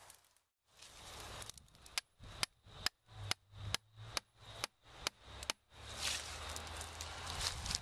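A wooden mallet striking a chisel into a tree trunk, about nine sharp blows at an even two to three a second, cutting wounds into the trunk for herbicide stem injection. Rustling in the grass follows the blows.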